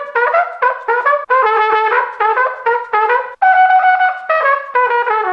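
All-plastic trumpet played with a regular mouthpiece: a quick melodic phrase of short, separately tongued notes with one longer held note a little past the middle.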